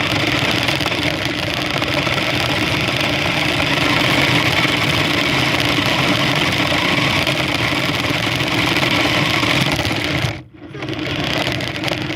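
Toy remote-control car's small electric motor and gears whirring steadily as it drives, heard close up from a phone taped onto the car. It stops briefly about ten seconds in, then starts again.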